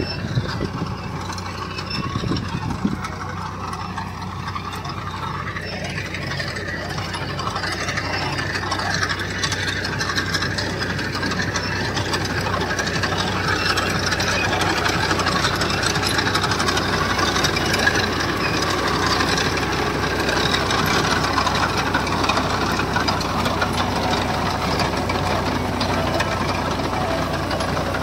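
An engine running steadily at an even speed, with a constant low hum under a rattly mid-range noise.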